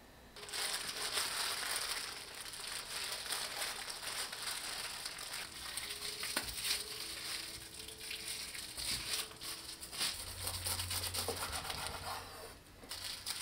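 Crinkling and rustling of a sheet of food wrapping paper as a filled sandwich is rolled up tightly in it, kimbap-style, with irregular crackles throughout.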